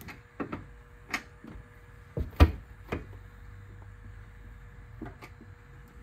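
Metal door being tried by hand, giving a handful of sharp knocks and rattles in its frame, the loudest about two and a half seconds in.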